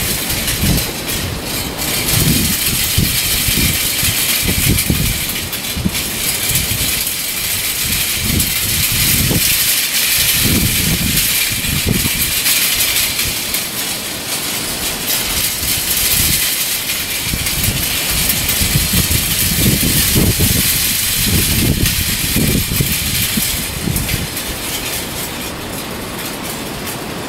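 Gusty wind buffeting the microphone in irregular low rumbles over a steady high hiss, with a hanging tree of stainless-steel pinwheels whirring and rattling as they spin in the breeze.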